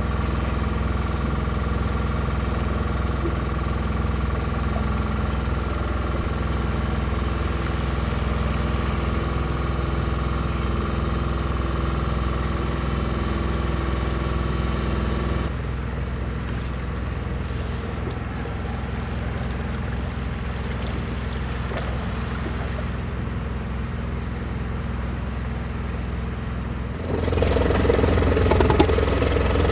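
Motorboat engine idling steadily, a low hum with a set of steady tones above it. The sound shifts abruptly about halfway through and again near the end, where it becomes louder.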